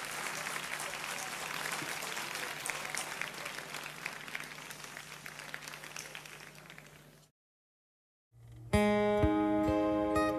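Audience applause and room noise dying away, then a second of dead silence at an edit, after which an acoustic guitar starts playing slow, separate picked notes.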